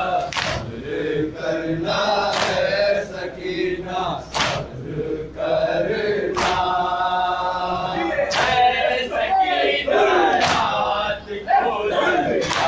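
A group of men chanting a noha, a Shia mourning lament, in unison. Sharp hand strikes of matam (chest-beating) land in time with it, about one every two seconds.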